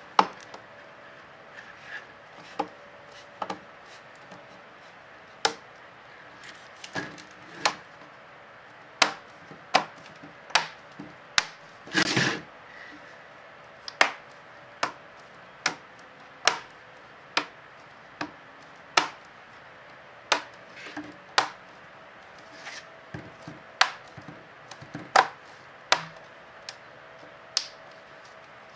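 Plastic latch clips of a laptop display lid snapping loose one after another as the lid halves are pried apart: sharp clicks about once a second, with a longer crackling snap about midway.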